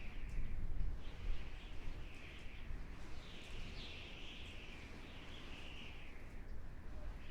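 Wind howling: a wavering high whistle that swells and fades over several seconds, over a steady low rumble of gusts.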